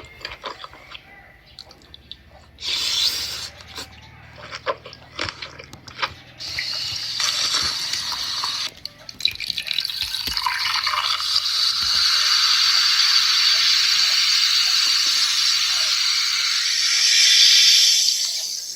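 Water running steadily from a tap, starting about six seconds in and growing louder, after a stretch of small knocks and clatter.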